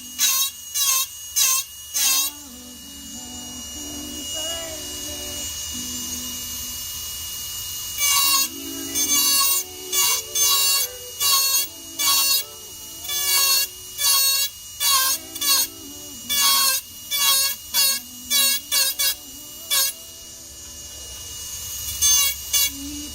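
Power engraving tool texturing a sterling silver buckle, running in short repeated bursts of roughly two a second with a steady high whine. There is a pause of several seconds early on, then a long run of bursts and a brief final pair near the end.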